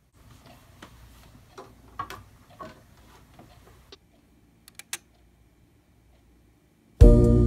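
Faint handling noise and light clicks, then a few sharp clicks about five seconds in as a record player's tonearm is handled over a spinning record. After a short quiet, a song with an organ-like chord starts loudly near the end.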